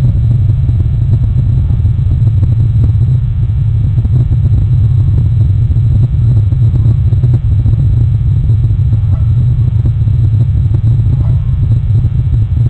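Loud, steady low rumble, with a couple of faint short higher-pitched sounds about two-thirds of the way through.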